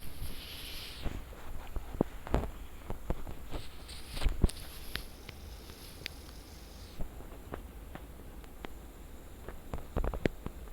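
Scattered small clicks and taps close to the microphone, with two short spells of hiss, the loudest tap about four seconds in: handling and movement noise.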